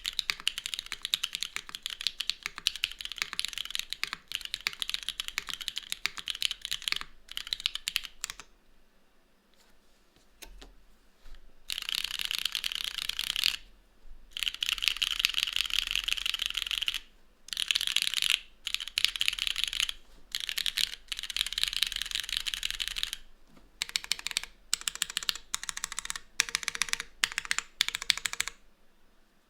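Typing on a Cloudnine R2 mechanical keyboard with Cherry MX2A Black linear switches on a full aluminium plate, tadpole-mounted without foam, and KeyKobo Dolch keycaps. It comes as rapid runs of keystrokes. There is a pause of a few seconds about nine seconds in, and shorter breaks between bursts toward the end.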